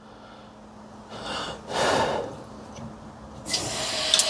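A man breathing out sharply through his nose twice, short and noisy, followed by a steady high hiss that starts abruptly near the end.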